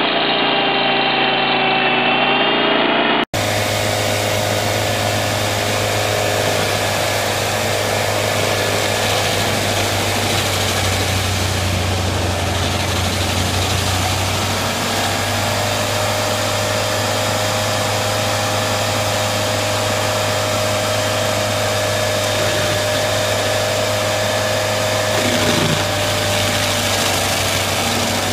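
Stump grinder engine running steadily under load while the spinning cutter wheel grinds into a tree stump, throwing chips. About three seconds in, the sound cuts abruptly from a smaller loader-mounted grinder to a tracked stump grinder, whose engine gives a steady deep hum.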